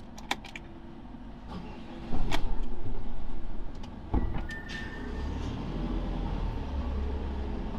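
Motorhome's engine starting about two seconds in, loud at first and then settling to a steady idle, heard from inside the cab. A few sharp clicks come early on and a single clunk just after four seconds.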